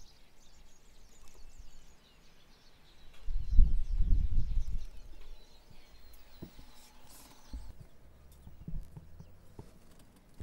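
Small birds chirping faintly, with a loud low rumbling burst about three to five seconds in and a few scattered clicks later.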